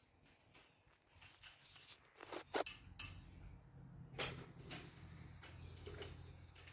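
A cat eating a snack, with scattered small clicks and clinks of food and dish; a low hum comes in partway through.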